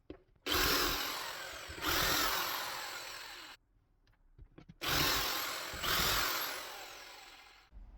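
Power drill boring pilot holes through 12mm plywood: four bursts of drilling in two pairs, each starting sharply and fading away.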